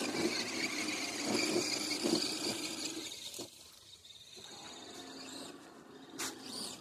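Small electric motor and gear train of a radio-controlled rock crawler whining steadily as it drives, easing off about three seconds in and leaving a fainter whir.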